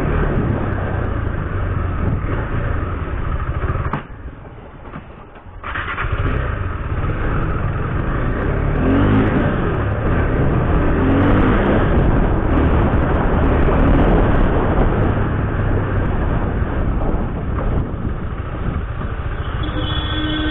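Motorcycle engine running while riding, with wind noise on the microphone and the engine note rising and falling with the throttle. The sound drops away sharply for about two seconds around four seconds in, and a vehicle horn sounds briefly near the end.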